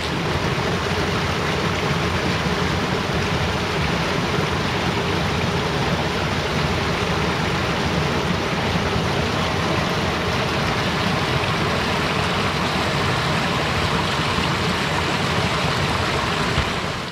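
Water running in a steady rush as a plastic bag is filled, stopping suddenly near the end.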